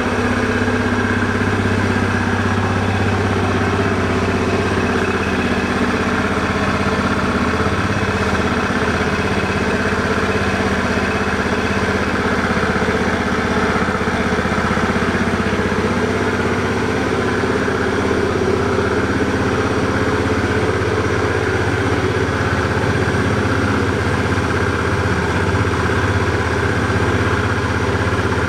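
Suzuki Address V50 scooter's 49cc fuel-injected four-stroke single-cylinder engine idling steadily.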